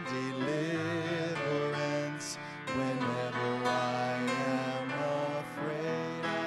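A man and two girls singing a song together into microphones, their voices holding and gliding between sustained notes.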